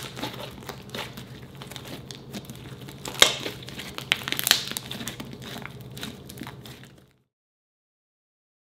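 Slime squeezed and kneaded by hand, a dense run of wet crackling clicks and pops with two louder pops about three and four and a half seconds in. It stops abruptly about seven seconds in.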